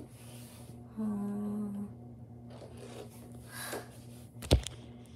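A person hums one steady note for about a second. Near the end there is a single sharp thump, the loudest sound here, over a steady low hum underneath.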